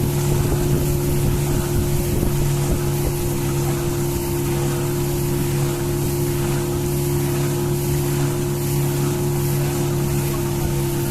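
A small boat's engine running at a steady speed, with wind rushing over the microphone.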